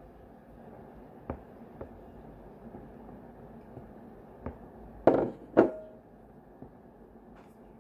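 A few faint taps, then two sharp knocks against a glass mixing bowl about five seconds in, the second leaving a brief ringing tone, as flour is tipped in and handled.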